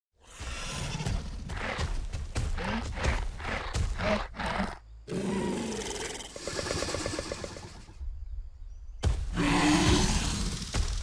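Scorpios Rex creature vocalisations, a designed dinosaur sound built from Indominus Rex screams, pig sounds and an alligator bellow: a run of short grunts and snarls, then a longer growl with a fast rattling pulse. After a brief pause near the end comes a loud roar.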